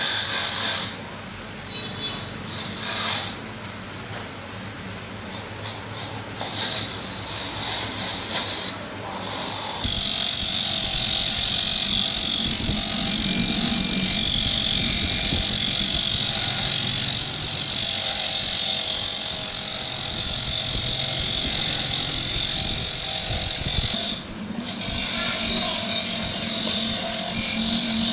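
A handheld power tool running steadily from about ten seconds in, with a short break near the end. Before it starts there are scattered clinks and scrapes of hand work.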